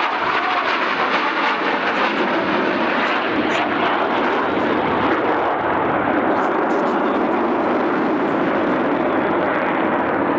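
Sukhoi Su-27 fighter jets in display flight, their twin AL-31F turbofan engines giving a loud, steady jet noise that holds even throughout.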